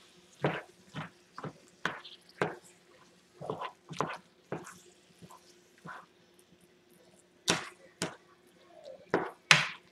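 Spatula scraping and knocking against a pot while ground beef and green pepper are stirred, in irregular short strokes about two a second with a pause in the middle.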